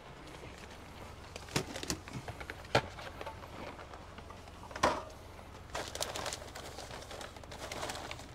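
A few sharp clicks and knocks, a louder knock about five seconds in, then a stretch of rustling, over a low steady hum.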